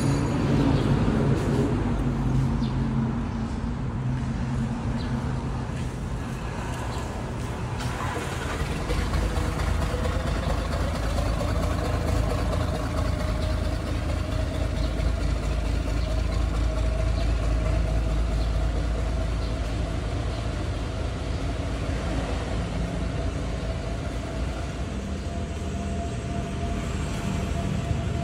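A motor vehicle engine running nearby: a steady low rumble that grows heavier about nine seconds in, with a faint whine that slowly creeps up in pitch.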